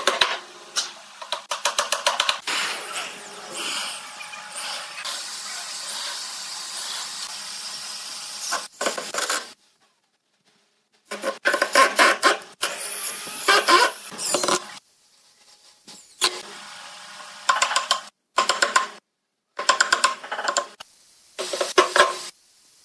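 Woodworking tools on pine: a cordless drill running steadily for several seconds as it bores into the wood, then, after a short pause, runs of sharp chisel-and-mallet blows chopping out a mortise, with brief gaps between runs.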